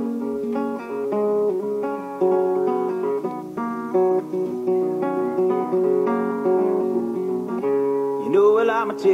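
Acoustic guitar intro of a country song, chords picked and strummed at a steady pace; a man's singing voice comes in near the end.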